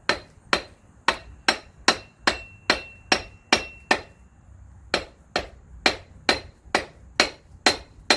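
Hammer blows, about two a second, on the flange of a GM 8.25 front differential's shaft: sharp metal-on-metal strikes with a short ring. The blows stop for about a second partway through, then resume at the same pace. The shaft is meant to knock out, but it is not coming loose.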